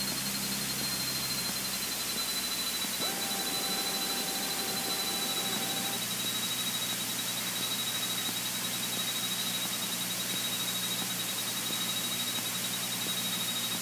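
Steady hiss of Cessna 152 cabin noise with the engine's low drone underneath and a thin high whine that slowly sinks in pitch. A plain steady tone sounds for about three seconds, starting about three seconds in.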